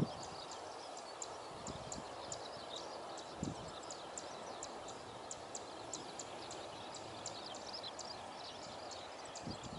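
Outdoor ambience of many short, high bird chirps over a faint steady rumble, with a soft low bump about three and a half seconds in.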